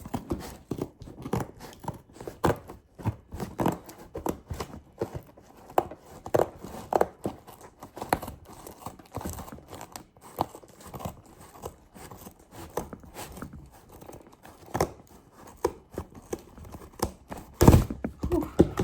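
Packaging being handled and torn open: irregular tearing, rustling and crinkling with many small knocks, and a louder thump near the end.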